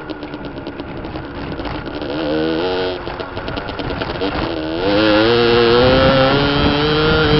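Beta RRT 50 enduro motorcycle's 50cc two-stroke engine idling with a quick popping beat, revved briefly about two seconds in. From about four and a half seconds the pitch climbs as it accelerates, and it runs louder at high revs near the end.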